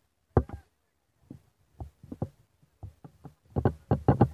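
Snatches of people's voices in short bursts cut off by dead gaps, growing busier near the end.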